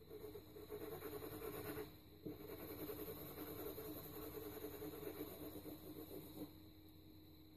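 Quick back-and-forth shading strokes rubbing on paper as a pencil drawing is shaded and blended, in two runs split by a brief pause about two seconds in. The strokes stop about six and a half seconds in.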